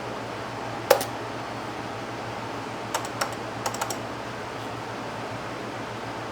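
Keys pressed on the Zenith SupersPort 286 laptop's keyboard: one sharp clack about a second in, then a quick run of key taps around three to four seconds in, over a faint steady low hum.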